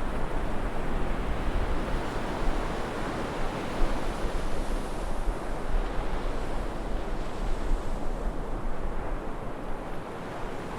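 Ocean surf washing onto a beach, with wind rumbling on the microphone; it eases a little toward the end.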